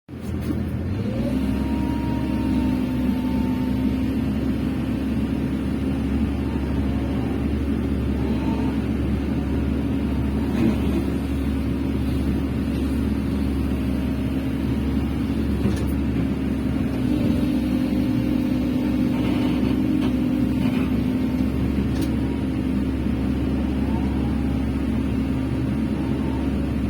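Hydraulic excavator's diesel engine running steadily while digging, with a higher whine that rises and falls now and then as the arm and bucket move, and a few sharp knocks.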